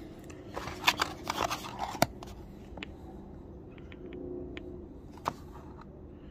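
Handling noise from a small cardboard box and glass jar being picked up and moved: a burst of rustling and sharp clicks in the first two seconds, then a few scattered ticks over a faint steady hum.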